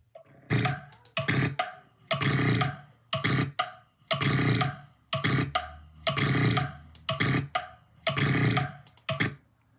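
A person snoring loudly, each breath a harsh rasping snore, repeating in a steady rhythm: a short snore followed by a longer one about every two seconds.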